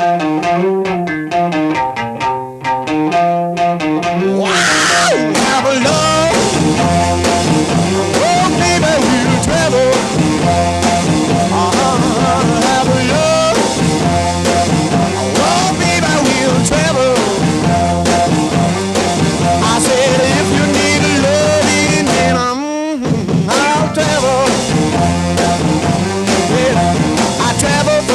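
Music: a plucked-string opening, then a rock band with drums and guitar comes in about four seconds in, with a brief drop-out a little after twenty seconds.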